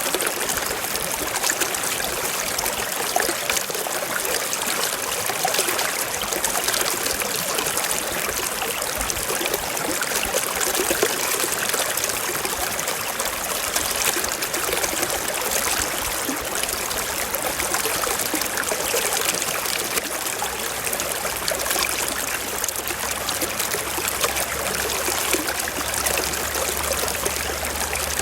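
Shallow stream running over rocks: a steady rush of water with fine trickling and splashing.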